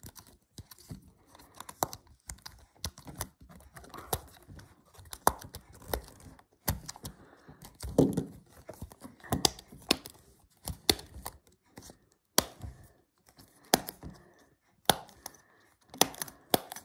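Bubbles of a push-pop fidget toy being pressed with a finger, giving an irregular string of sharp pops and clicks, with rustling as the toy is handled.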